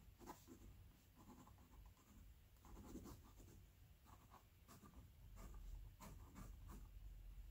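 Fine-tip ink pen (Sakura Pigma Micron) scratching faint short, irregular strokes on watercolour sketchbook paper. A low steady hum comes up about five seconds in.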